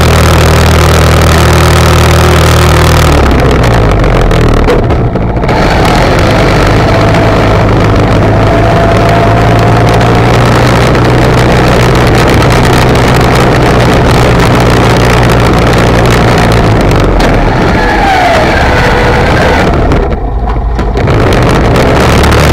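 ATV engine running loud and close, its note changing about three seconds in and easing off briefly twice, at about five seconds and near the end.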